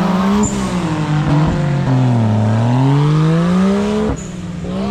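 An off-road 4x4's engine being revved hard, its pitch rising, falling back and rising again as it works under load. About four seconds in the sound drops suddenly and settles to a steadier, quieter engine note.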